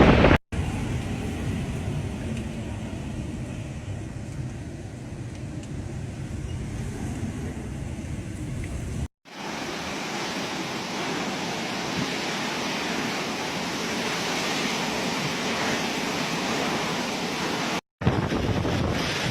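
Typhoon-force wind buffeting the microphone, a steady rushing noise with no let-up. It comes in three clips cut abruptly one after another: the first deeper, the later ones brighter and hissier.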